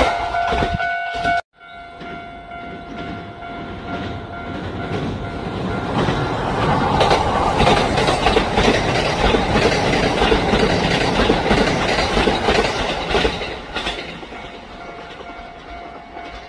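Kintetsu electric train passing close by, its wheels clacking over rail joints: loudest mid-way, then fading as it moves off. A level-crossing warning bell rings steadily underneath.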